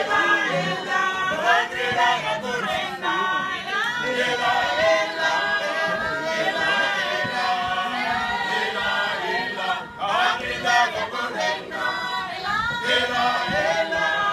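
Group of waiters and kitchen staff singing together a cappella, several voices at once, without instruments.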